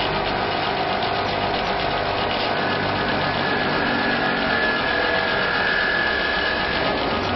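CO2 laser engraving machine running while it engraves a glass bottle on its rotary attachment: a steady mechanical hum and buzz. A thin, higher whine joins about two and a half seconds in.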